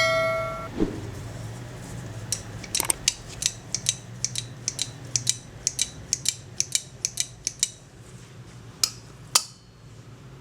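Steel hand pruners snapping open and shut again and again, with crisp metal clicks about two to three a second for several seconds and two more clicks near the end. A short metallic ring fades out in the first second, and a steady low hum runs underneath.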